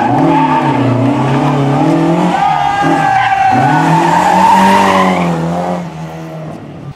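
Ford Escort Mk II rally car's engine revving hard, its pitch rising and falling as the driver works the throttle through a drift, with tyres squealing on the tarmac. The sound drops away about six seconds in.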